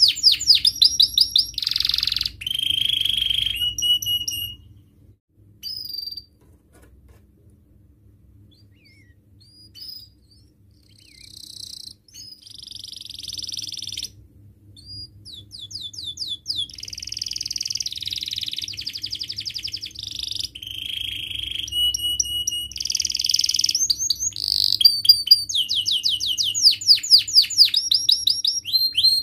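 Domestic canary singing: fast trills and rolled phrases of high notes. The song breaks off about five seconds in, with only a few scattered notes for several seconds, then resumes and runs on in long, dense trills.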